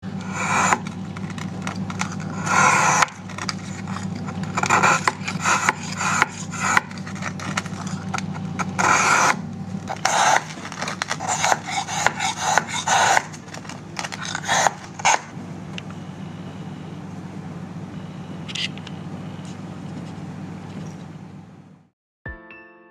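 Deba kitchen knife shaving a block of ice into a long ice spear: irregular rasping scrapes, stroke after stroke, over a steady low hum. The scraping stops about fifteen seconds in, leaving only the hum.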